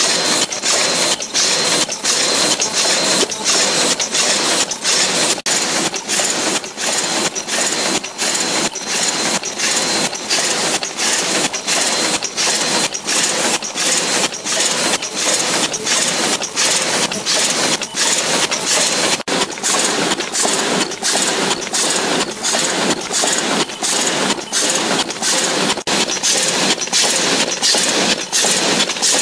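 Paper cup bucket forming machine running at production speed, its turret indexing and forming stations clattering in an even rhythm of about one and a half strokes a second, matching its rated 85 pieces a minute.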